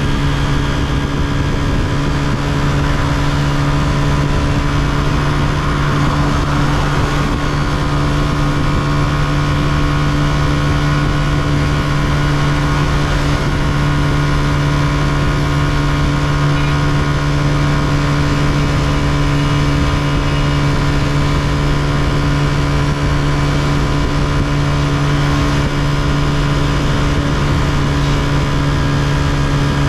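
Honda CG125 single-cylinder four-stroke motorcycle engine running at a steady speed while riding. The engine note holds the same pitch and loudness throughout, over a constant rush of road and wind noise.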